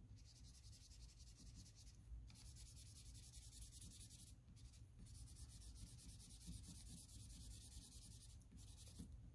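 Felt-tip marker rubbed back and forth on printer paper, filling in colour with the flat side of the tip: a faint, scratchy hiss broken by short pauses between strokes.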